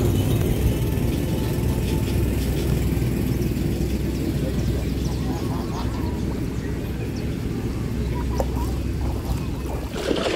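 Wind rumbling on the microphone, a steady low noise.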